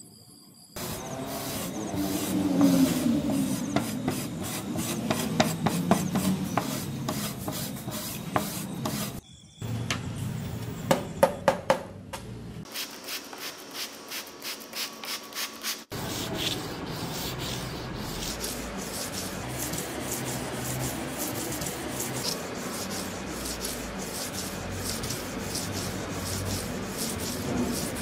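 Steel machete blade being rubbed by hand with an abrasive in rapid back-and-forth strokes. The strokes stop and restart a few times, then settle into steady rubbing.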